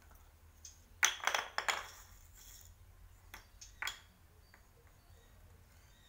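A quick run of light clinks and rattles about a second in, lasting about a second and a half, then three single sharp clicks a little before four seconds: a small hard object knocking on a concrete floor.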